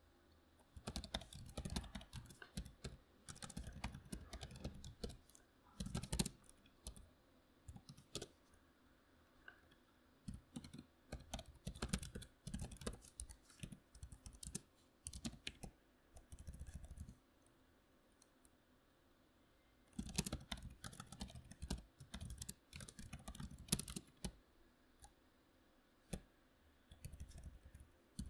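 Typing on a membrane computer keyboard, fast runs of key presses broken by two pauses of a couple of seconds in the second half.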